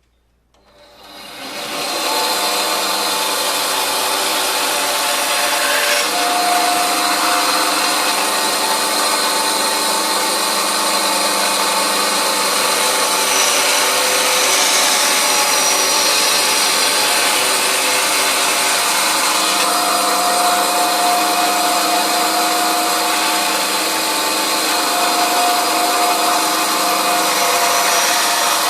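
Electric power tool spinning up about a second in, then running steadily while cutting a wooden pattern piece.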